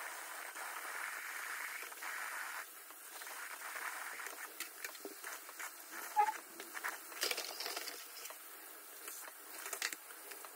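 Warm tap water running into a sink and over a flexible 3D printer build plate while it is scrubbed with a wet microfiber cloth to wash off caked-on glue stick residue. The steady hiss of water gives way about two and a half seconds in to scattered soft splashes and cloth rubbing.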